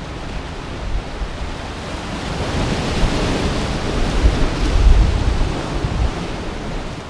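Ocean surf breaking and washing over a rocky shore, swelling to a surge a couple of seconds in and easing off near the end, with wind buffeting the microphone.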